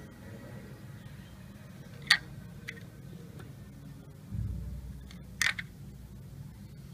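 Handling noise: a sharp click about two seconds in, two fainter ticks after it, a low bump about four seconds in, and a second sharp click soon after, over a low steady hum.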